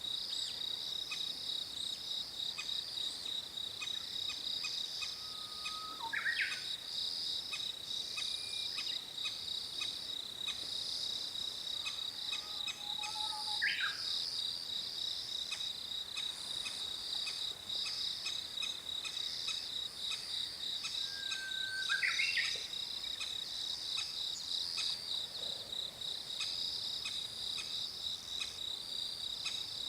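A steady, high insect trill, with short calls from an adult crested kingfisher holding food. It is calling to lure its chick to the nest-hole entrance. Three brief rising calls stand out, about a fifth, half and three-quarters of the way through.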